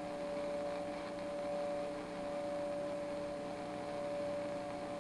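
Tram Titan tube CB base station receiver hissing on an open channel between transmissions, with a steady hum-like tone held under the hiss.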